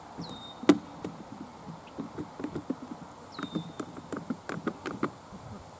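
Irregular knocks, taps and clatter from plastic jugs and bottles being handled in the grass, with one sharp click about a second in. A short high whistle that drops and then holds is heard twice.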